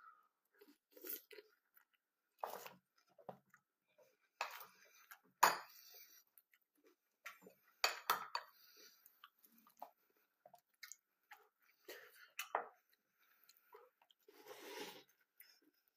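Cornflakes being chewed with the mouth close to the microphone: irregular dry crunches with short pauses between bites.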